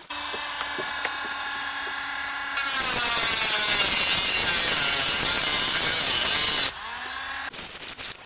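Dremel-style rotary tool with a cut-off disc running with a steady high whine. About two and a half seconds in, the disc bites into the metal tabs of a car blower-motor resistor, and a much louder grinding hiss takes over for about four seconds before it eases back to the lighter whine.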